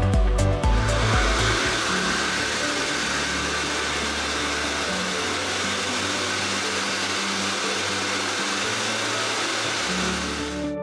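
High-velocity dog grooming dryer blowing with a steady rushing hiss over background music. It comes in about a second in and cuts off suddenly near the end.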